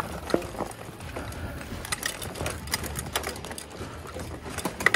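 Mountain bike descending a steep dirt trail: the tyres rumble over the ground while the bike clatters with frequent knocks and rattles over roots and rocks, the sharpest knocks about half a second in and just before the end.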